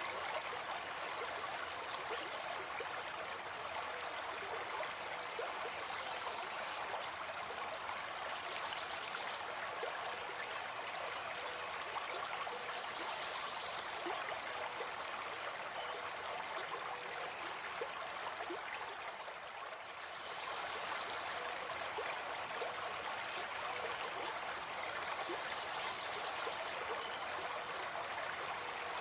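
A stream flowing, a steady rushing babble of water that eases slightly for a moment about two-thirds of the way through.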